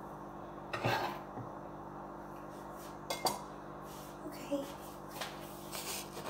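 A kitchen knife clinking and scraping against a glass salad bowl and dishes: a few separate clinks about a second in, just after three seconds and near the end, over a faint steady hum.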